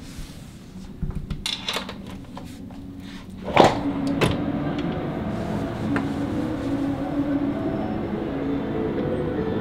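Scattered clattering knocks, then a loud thud about three and a half seconds in, after which ambient music settles into steady sustained tones.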